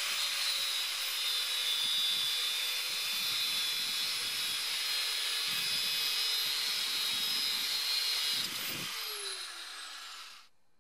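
Angle grinder with a thin cutting disc running and cutting through a stainless steel rod, with a steady high whine and grinding hiss. Near the end it is switched off and its whine falls in pitch as the disc spins down.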